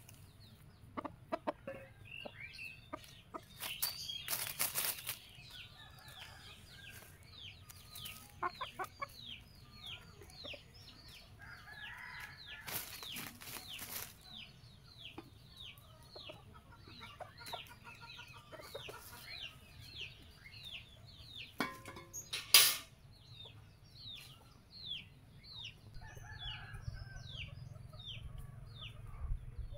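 Hens clucking now and then in a farmyard while a small bird keeps up a quick series of short, high, falling chirps, about two a second. A few sharp knocks cut through, the loudest about two-thirds of the way in.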